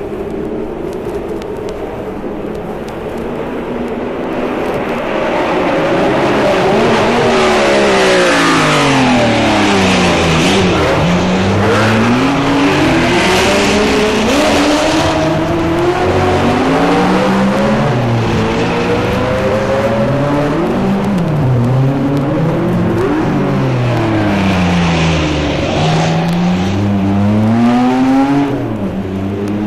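Several three-litre Formula One cars going by in turn. Their engine notes fall as the drivers brake and shift down, then climb in steps as they accelerate up through the gears. Several cars overlap, each one's pitch dropping and rising again, and the sound grows louder about five seconds in.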